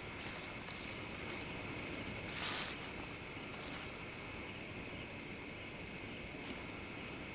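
Footsteps through dry leaves, slow and sparse, with one clearer crunch about two and a half seconds in and a few faint rustles, over a steady high-pitched drone.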